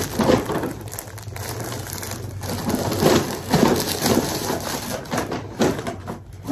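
Plastic shopping bags and garment packaging rustling and crinkling as clothes are handled, an irregular crackle.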